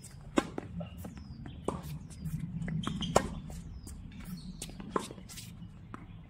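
Tennis rally on a hard court: a serve struck about half a second in, then sharp racket hits and ball bounces every second or two, with sneakers squeaking and scuffing on the court between shots.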